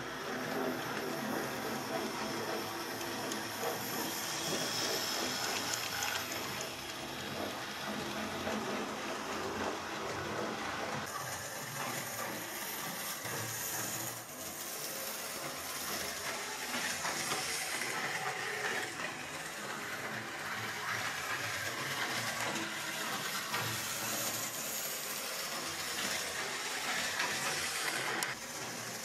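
Hornby Rocket model steam locomotive and its coaches running around the track: a steady whirr of the small electric motor and the wheels on the rails.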